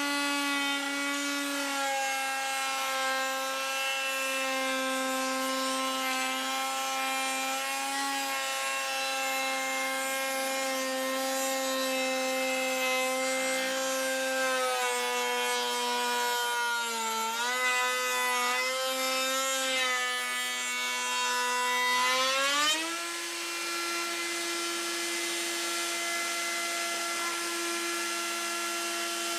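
Table-mounted router cutting a raised door panel, its whine pulled lower and wavering while the panel is fed across the bit. About 23 seconds in, the cut ends and the motor speeds back up to a steady, higher free-running whine.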